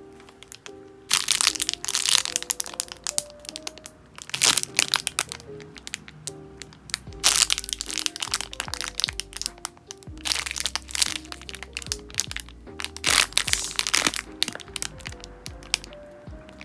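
Plastic packaging crinkling and crackling as it is handled, in five loud bouts of a second or two each, over light background music.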